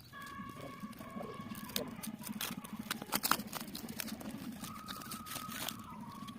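Clicks and rustles of a pressure washer's packaging and parts being handled while it is unboxed. A steady high tone of unknown source is held for about two seconds at the start and again for about a second near the end.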